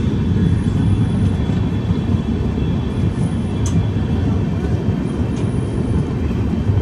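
Express train coach running along the track, heard from the coach side: a steady low rumble of wheels on rails, with one short sharp click about three and a half seconds in.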